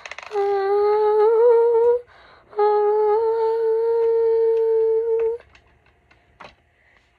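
A girl humming two long held notes, the first wavering a little near its end, the second held steady for about three seconds. Then a few faint clicks as plastic bricks are handled.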